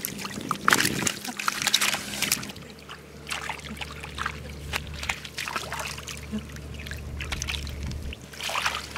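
Irregular splashing and sloshing in shallow muddy water as catfish are grabbed by hand and dropped into a plastic basket.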